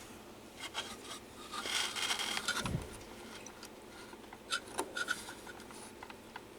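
Small handling sounds from working inside a CD player: light clicks and a stretch of rubbing and scraping as its small parts are handled, with a low thump about two and a half seconds in and a few sharp clicks near the middle.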